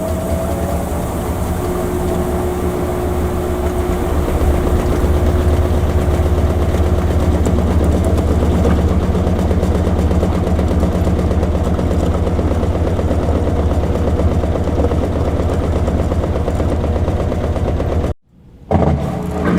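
Washing machine running with a steady, loud low motor hum. The sound cuts out abruptly for about half a second near the end, then comes back.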